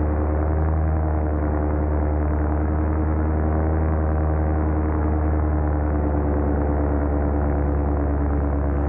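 Paramotor engine and propeller running at a steady cruise throttle, a constant droning hum with no change in pitch.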